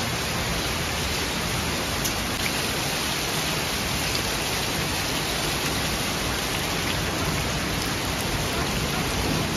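Heavy rain falling steadily, a constant hiss of water that does not let up.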